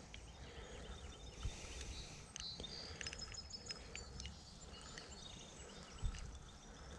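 Quiet streamside ambience: a low steady rumble with faint bird chirps, plus a few small clicks and two soft thumps from hands handling a hooked brown trout, the louder thump near the end.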